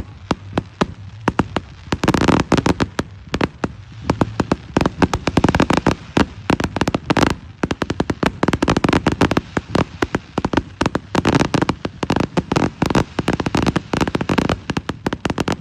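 Fireworks barrage: a dense, rapid string of bangs and crackles, many per second, with no pause between them.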